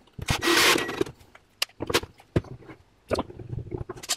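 Handling noises from clamping plywood cabinet panels: a brief scraping rasp about half a second long near the start, then scattered knocks and clicks of wood and clamp.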